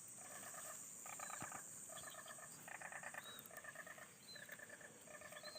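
Faint countryside animal sounds: a short pulsing call repeats roughly once a second, with brief high chirps of small birds between them.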